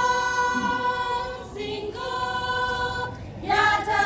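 A choir singing a song of honour in long held notes, the voices changing note together about every one and a half seconds.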